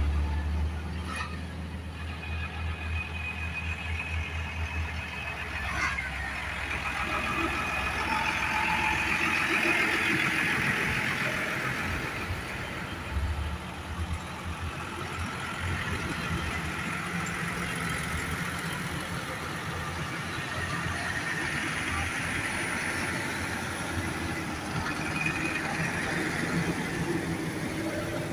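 A line of large farm tractors driving past one after another, their diesel engines running and tyres rolling on tarmac, swelling louder as each one draws close and fading as it moves away.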